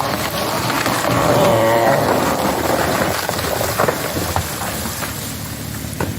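Chainsaw engine running steadily while cutting wood, its pitch swelling briefly about a second in.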